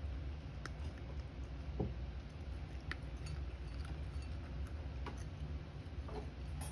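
A cat eating dry kibble from a ceramic bowl: irregular small crunches and clicks as it chews, over a steady low hum.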